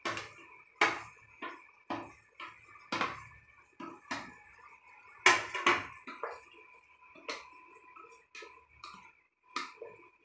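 Chopped potatoes being tipped into a metal pressure-cooker pot, knocking and clattering against the metal in a run of about fifteen irregular knocks, the loudest about five seconds in. A faint steady whine runs underneath.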